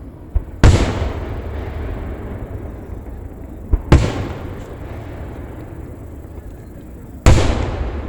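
Aerial fireworks shells bursting: three loud booms about three seconds apart, each trailing off in a long rumble, the first two with a small pop just before the boom.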